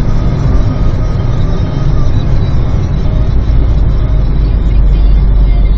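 Cabin noise of a Peugeot 307 with its 1.6 HDi four-cylinder turbodiesel at motorway speed: a steady deep rumble of engine, road and wind as the car slows from about 145 km/h with the engine speed falling.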